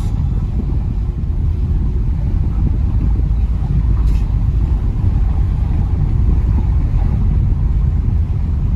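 Steady low rumble of a moving vehicle, road and engine noise.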